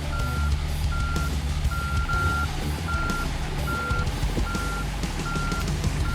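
A backup alarm beeps steadily, about one short beep every 0.8 s, over the low running engine of a compact machine, likely the Toro Dingo mini skid steer, reversing.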